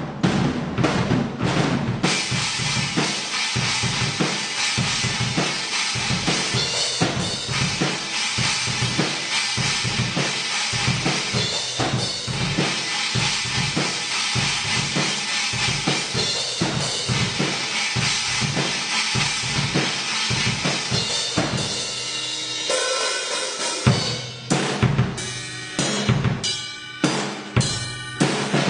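Acoustic drum kit played live: bass drum and snare under a fast, continuous wash of crashing cymbals. About 22 seconds in the playing thins out, and near the end it breaks into separate loud accented hits.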